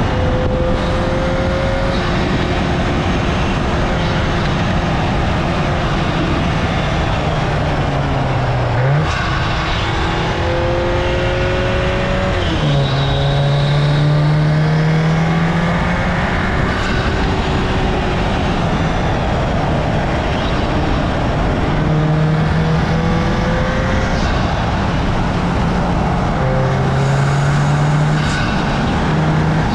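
Audi S3 (8Y) turbocharged 2.0-litre four-cylinder accelerating hard and shifting up, its note climbing and dropping several times, over heavy tyre and wind noise picked up by a camera mounted low on the car.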